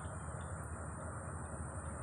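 Steady low rumble of distant road traffic, with a constant high-pitched whine and a few faint short chirps over it.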